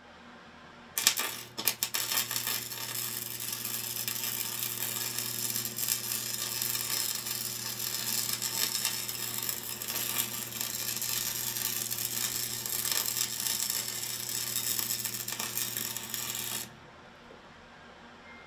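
Arc welding a bead onto a worn mild-steel forging die to build up the worn spots. A steady crackling hiss starts about a second in with a few sharp pops as the arc strikes, then cuts off suddenly near the end, over a steady low hum.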